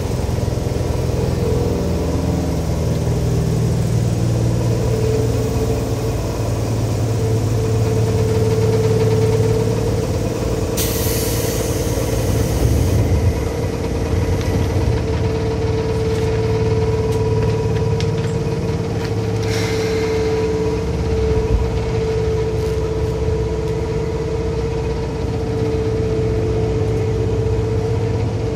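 Seibu 2000 series electric train running, heard from inside the car: a steady low rumble from the wheels and track with a steady whine over it. A brief hiss comes about eleven seconds in and lasts about two seconds.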